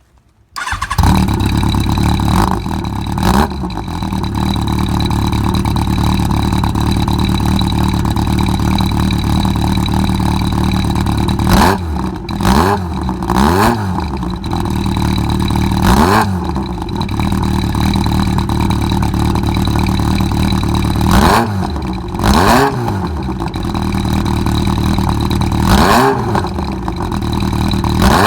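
Yamaha XJR1200's four-cylinder engine starting about half a second in, then idling with repeated throttle blips that send the revs up and back down, heard through an aftermarket exhaust fitted with a longer, slightly thicker silencer.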